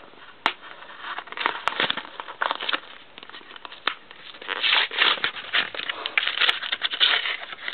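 Plastic blister packaging crinkling and crackling as it is worked open by hand. There are a few sharp clicks, and the crackling grows busier in the last few seconds.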